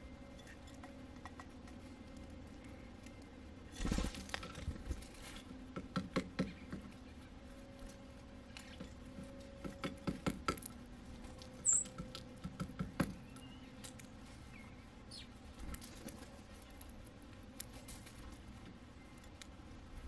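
Birds pecking and cracking sunflower seeds at a terracotta seed saucer: blue jay and northern cardinal. The sound is scattered clicks and crackles that come in clusters. One short high chirp partway through.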